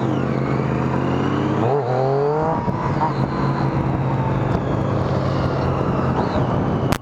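Triumph Street Triple R's inline three-cylinder engine running under way, rising in pitch for a moment about two seconds in as it accelerates.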